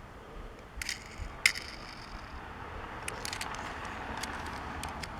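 Small sharp clicks and rattles of a die-cast Matchbox toy fire truck being handled, a handful spaced out, the loudest about a second and a half in, with a little clustered clicking about three seconds in.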